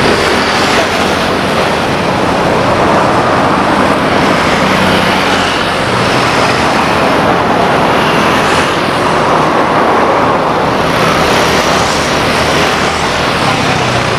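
Steady loud engine and traffic noise with a faint low hum, holding level with no clear rise or fall.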